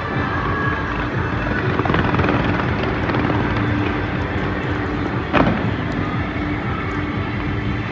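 New Year fireworks show: a dense rumble of aerial shells bursting, with fine crackling throughout and one louder bang about five and a half seconds in.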